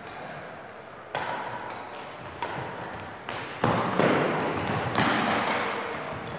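Badminton rackets striking a shuttlecock in a rally, about six sharp hits roughly a second apart, each ringing on in the echo of a large gymnasium.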